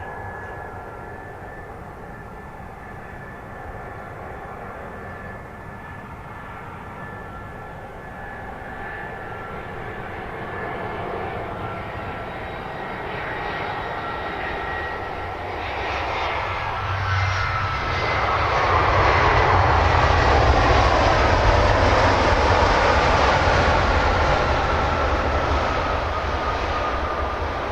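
Airbus A320-214 jet airliner's CFM56 turbofan engines on landing approach, growing louder as it nears and passes. The whine drops steadily in pitch as the aircraft goes by, over a rumble that is loudest about two-thirds of the way in.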